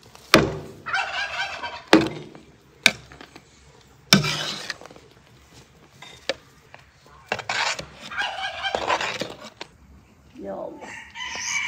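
A metal ladle knocking sharply against the side of a big aluminium pot as boiling strawberry jam is stirred, several distinct clanks, and in between a turkey gobbling in a few short rattling bursts.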